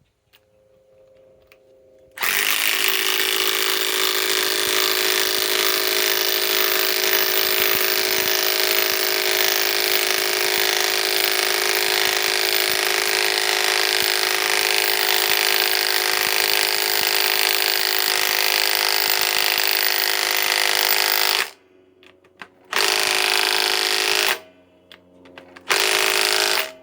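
Milwaukee M18 Fuel 3/8-inch compact impact wrench hammering a 3¾-inch lag screw into timber, a steady whining rattle for about nineteen seconds. It stops, then gives two short bursts near the end as the lag is seated.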